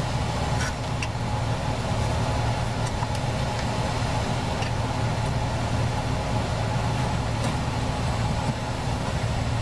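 Steady hum of a portable fan running, with a few light clicks and taps from sheet metal being handled.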